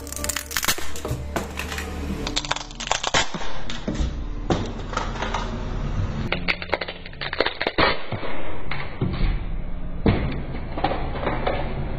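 Repeated sharp clicks and cracks from hands and tools working on a smartphone during repair, over faint background music.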